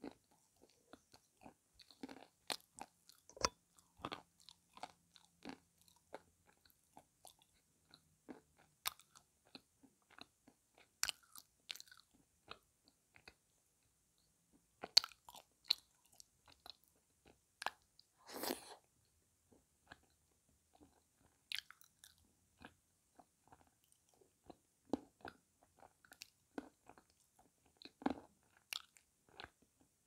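Chewing and crunching of water-soaked pieces of blue Uzbek edible clay: sharp, irregular crunches and mouth clicks with short pauses between bites.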